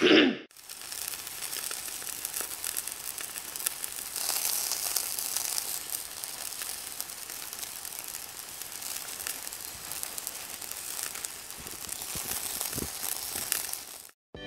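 Hot oil sizzling and crackling in a frying pan: a steady hiss full of fine rapid crackles, a little louder about four seconds in.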